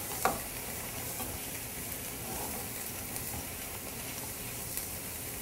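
Shrimp sizzling in a frying pan as a spatula stirs them: a steady frying hiss.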